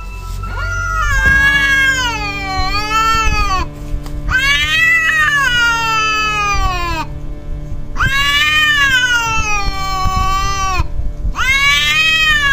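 Domestic cats caterwauling in a face-off between a Siamese and a British Shorthair: four long, wavering yowls with short breaks between them, each sliding down in pitch at its end. These are threat calls in a standoff over who is dominant.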